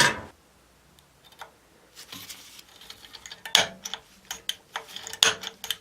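Light metal taps and clicks on a cast iron casting, a handful at irregular spacing, some leaving a short ring, as hole positions are spotted during layout.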